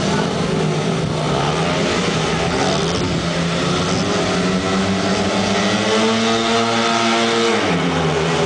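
Four speedway bikes' 500cc single-cylinder methanol engines revving at the start gate, the pitch climbing steadily, then dropping sharply near the end as the bikes launch off the start.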